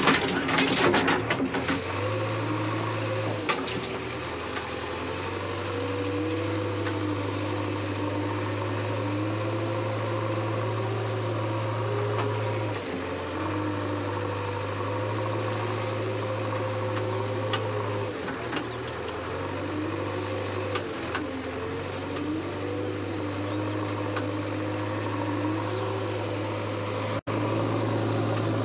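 JCB backhoe loader's diesel engine running steadily, heard from inside the cab, with a whine that rises and falls again and again as the backhoe arm digs. There is some knocking in the first second or so.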